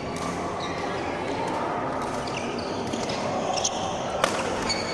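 Badminton rally: rackets hitting the shuttlecock with sharp smacks, the loudest a little over four seconds in. Short high squeaks of court shoes on the floor run over a steady hall hubbub.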